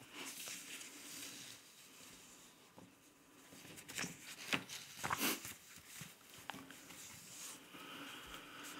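Loose sheets of paper being handled and turned over on a table close to the microphones: soft rustling, with a few sharper crinkles about four to five seconds in.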